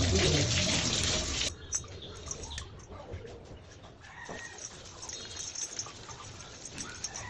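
A loud, even rush of noise that cuts off suddenly about a second and a half in, followed by faint bird calls and a few light clicks.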